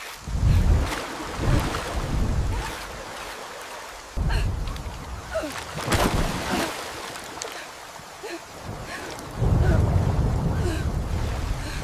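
Heavy rain falling with rolls of thunder: low rumbles swell up right at the start, again about four seconds in, and once more near the end.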